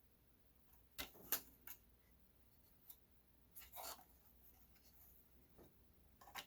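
Faint handling noises of an RC truck being turned over in the hands: a few light clicks and taps about a second in, then a short scraping rustle, with light ticks near the end.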